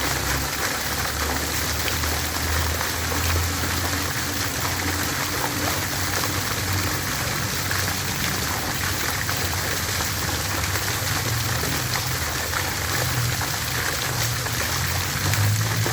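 Water fountain splashing: a steady, dense spatter of falling water.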